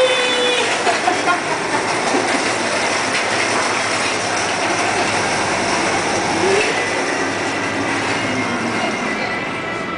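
Small hard wheels of a loaded shopping-basket dolly rolling across a tiled shop floor, a steady rattling rolling noise. A man's drawn-out shout breaks off about half a second in.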